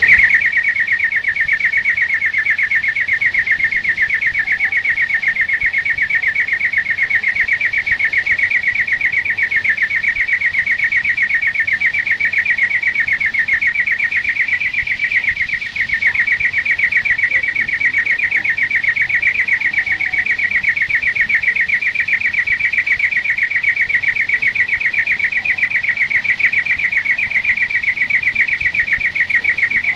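European greenfinch singing one long, very rapid trill held at the same pitch, with a brief dip about halfway through.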